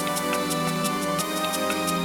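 Background music: sustained synth-like chords under a slowly stepping melody, with a steady beat of light ticks about three a second.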